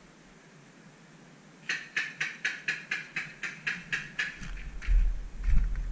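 Paintball marker firing a rapid string of shots, about four a second for two and a half seconds. Near the end a low rumble of movement against the camera sets in under a few more scattered shots.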